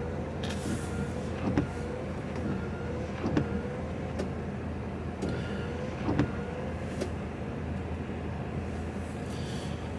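Heavy goods truck's diesel engine idling, heard inside the cab, with a faint wavering whine that dips every second or so and a few short knocks, typical of the windscreen wipers sweeping.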